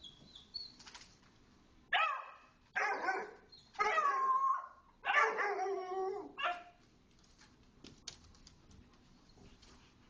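Small dog barking: a run of about five drawn-out, high barks between about two and six and a half seconds in.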